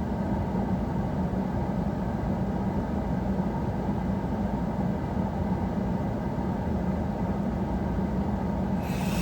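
Steady vehicle road and engine noise heard from inside a car cabin, a low even rumble with a constant hum. A brighter hiss joins near the end.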